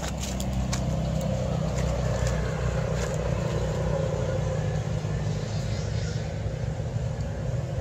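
Steady low motor hum, like an engine running, with a few light clicks and rustles over it.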